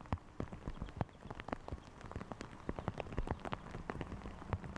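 Rain falling, with large drops striking a hard surface close by in sharp, irregular taps, several a second.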